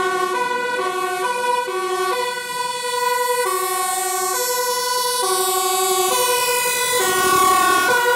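Dutch fire engine's two-tone siren sounding, alternating between a high and a low note.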